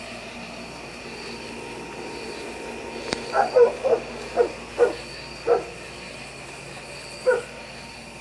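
A roosting chicken, disturbed by a flashlight at night, gives a quick run of about seven short clucks and one more near the end. Behind it is a steady high insect chorus, and a sharp click comes just before the clucks.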